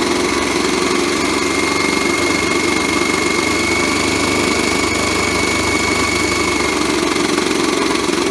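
Modified toy washing machine spinning a floor cloth: its small motor runs with a steady, vibrating hum and a thin high whine that fades out near the end.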